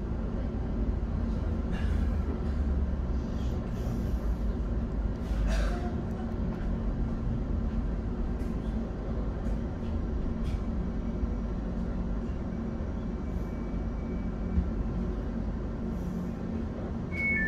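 Interior of a Class 710 Aventra electric multiple unit running between stations: a steady low rumble of wheels on track with a constant motor hum. A few short knocks come through, the clearest about five seconds in.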